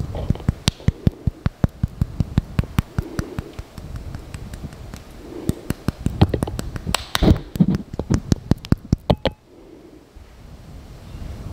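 Close-miked mouth eating honeycomb: rapid sticky, wet clicks and smacks of chewing, thinning out about nine seconds in.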